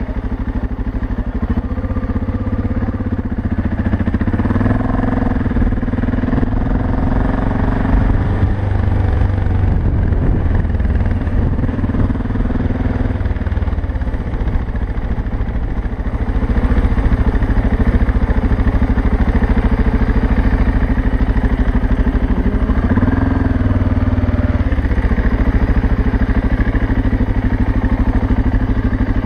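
BMW 650 GS single-cylinder engine running under way, its note rising and falling at a few throttle changes, with clattering over it. It gets a little louder about halfway through.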